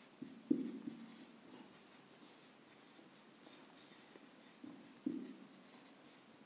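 Marker pen writing on a whiteboard: faint scratchy strokes, a cluster about half a second in and another about five seconds in.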